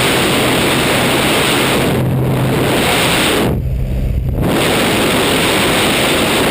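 Loud rushing wind over the camera microphone during a skydive. It eases briefly about three and a half seconds in, letting a steady low engine drone from the jump plane show through.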